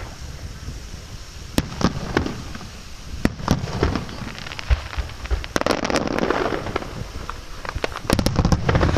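Fireworks going off: scattered sharp bangs and pops, a stretch of crackling about halfway through, and a dense run of louder cracking bangs near the end.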